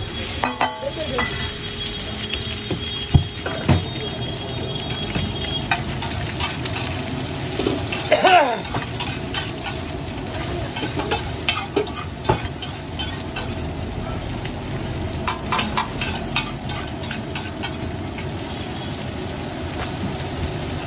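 Egg omelette frying in a pool of butter on a large flat griddle (tawa), sizzling steadily while a metal spatula scrapes, chops and taps across the griddle surface. The spatula gives sharp clacks and scrapes now and then, the loudest about eight seconds in.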